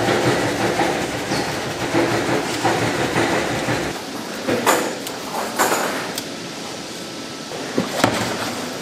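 Industrial paddle mixer churning thick red-pepper kimchi seasoning paste, a continuous mechanical rumble and slosh. A few sharp knocks and clanks come in the second half, and the low rumble thins about halfway through.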